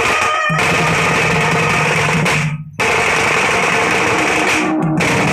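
Kalahandi band party playing loud Sambalpuri music, with heavy drumming and snare under a dense, full sound. The music breaks off for a moment about halfway through, then comes straight back.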